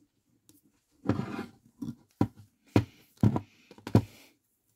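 Handling noise from SN-48B ratchet crimping pliers and a metal flat spade terminal being fitted into the jaws: a short scraping rustle about a second in, then four sharp clicks and knocks about half a second apart.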